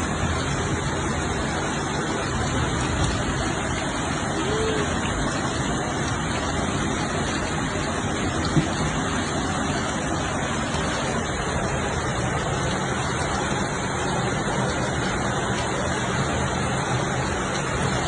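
Steady, even rush of storm water, heavy rain and running water, with one sharp tap about eight and a half seconds in.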